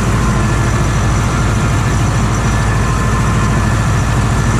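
Tractor engine running steadily at an even speed while the tractor works a field with a sprayer.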